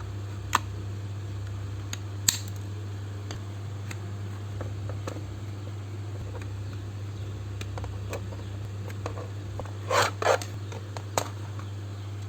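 Scattered sharp clicks and snaps of small hard parts being handled, with a cluster of louder ones about ten seconds in, over a steady low hum.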